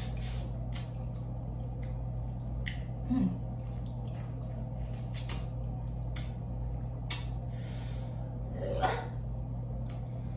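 Eating sounds from seasoned boiled shrimp held in the fingers: wet chewing and mouth clicks and the shell being pulled apart, scattered sharp clicks throughout, with a longer rustling smack near the end, over a steady low hum.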